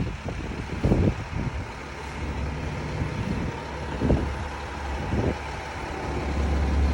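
Motor vehicle noise: a steady low engine hum that grows louder near the end, over a noisy background with a few short thumps.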